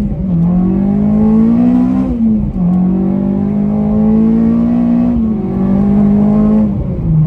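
Honda K24 2.4-litre four-cylinder engine in a modified EP3 Civic Type R, heard from inside the cabin under acceleration. The revs climb, fall sharply at a gear change about two and a half seconds in, then hold nearly steady and drop again near the end as the driver eases off or shifts.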